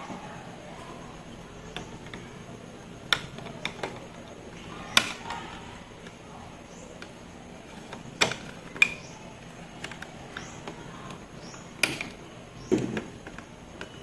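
A handful of sharp, separate clicks and knocks of hard objects being handled and set down, about six over the stretch, with a low steady background between them.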